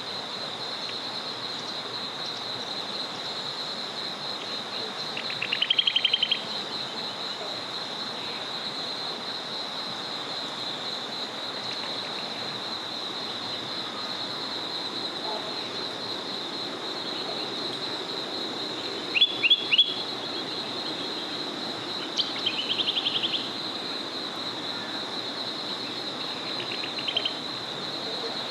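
Small forest river flowing steadily under a continuous high-pitched trill, with songbirds calling over it: a loud rapid trill about six seconds in, three sharp notes around twenty seconds, another trill just after, and a short one near the end.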